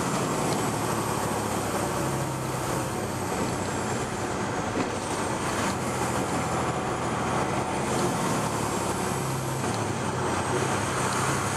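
Semi truck's diesel engine running and tyre/road noise, heard from inside the cab while driving, with a faint high whine that slowly rises and falls.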